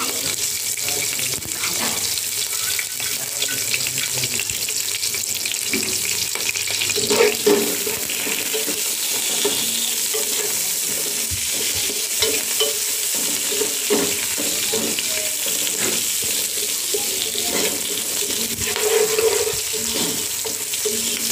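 Sliced onions, shallots and whole spices sizzling in hot coconut oil, with a steady hiss throughout. A wooden spoon stirs them, scraping against the pot now and then.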